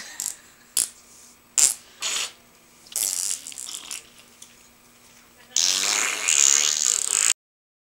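Children making fart noises with their mouths: a few short raspy blurts, then one longer, louder one lasting about two seconds. The sound cuts out suddenly near the end.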